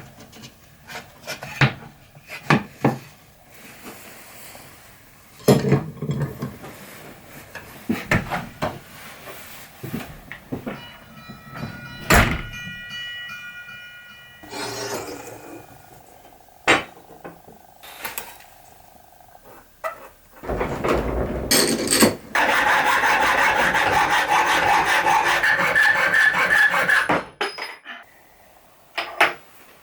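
Workshop handling noises: a series of knocks, clatters and rubbing of wood and tools, with a fast run of clicks about halfway through. Near the end a loud, steady machine noise runs for about five seconds, then stops.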